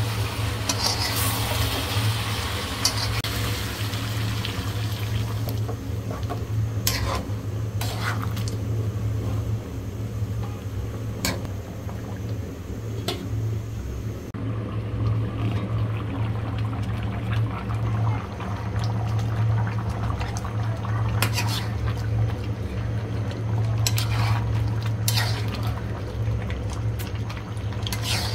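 Chicken and green-banana curry cooking in a metal pan: liquid bubbling and being stirred, with several sharp clinks of metal utensils against the pan, over a steady low hum.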